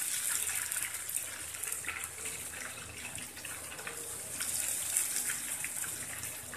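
Hot ghee in a steel pot sizzling and crackling hard as thin streams of ghevar batter hit it and fry, frothing up. The sizzle swells again about four seconds in as more batter goes in.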